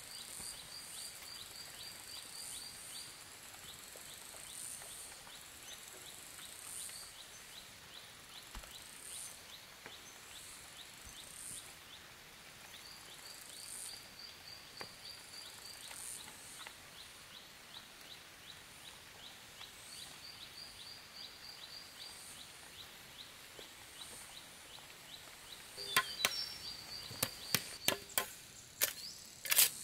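Outdoor forest ambience: high-pitched calls repeating in quick trills every few seconds over a steady faint ticking. About four seconds before the end comes a run of sharp knocks.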